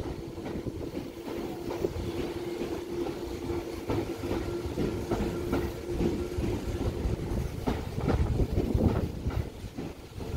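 Tobu 10030 series electric train pulling slowly out of a siding, its wheels clicking over rail joints and points over a steady rumble. A steady hum runs underneath and stops about seven seconds in.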